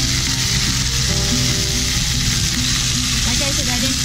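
Chicken pieces sizzling steadily as they brown without oil in a nonstick pot.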